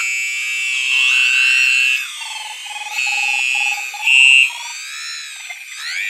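Electronic oscillator tones from student-built sound devices: steady, shrill high tones with wavering, gliding pitches layered over one another. From about two seconds in, a lower tone beeps roughly twice a second beneath them.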